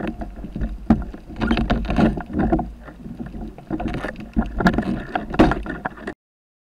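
Muffled underwater sound picked up through a camera's waterproof housing: low rumbling water movement with irregular bumps and knocks as the diver handles an octopus on a gaff. It cuts off abruptly about six seconds in.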